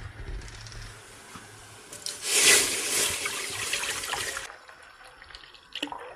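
Full cream milk poured from a plastic jug into a steel pot, a steady splashing pour. It swells loudest about two seconds in, holds for about two seconds, then goes softer.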